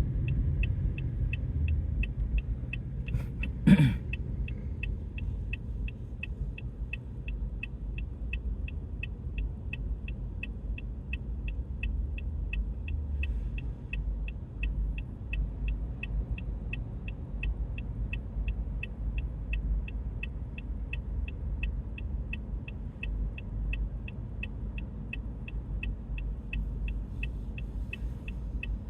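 A car's low, steady rumble heard from inside the vehicle, with a short high beep repeating evenly about two to three times a second. A brief louder sound comes about four seconds in.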